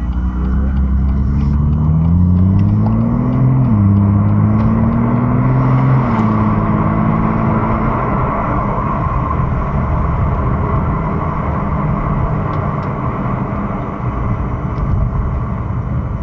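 BMW M2's turbocharged inline-six pulling hard under acceleration, its pitch rising, then falling sharply at two upshifts about 4 and 6 seconds in. After that it settles into a steady cruise under road and tyre noise.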